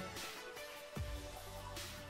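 Background music with sustained tones and a deep bass hit about a second in.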